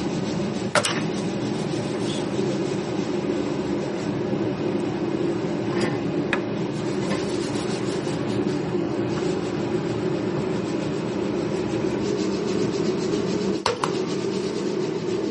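Steady, loud mechanical drone with a few sharp clicks or knocks over it.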